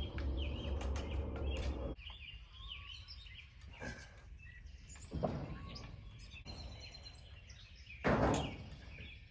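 Small birds chirping in the background, with scattered light clicks. A low rumble stops about two seconds in, and two short noisy knocks or rustles come about five and eight seconds in, the second the loudest.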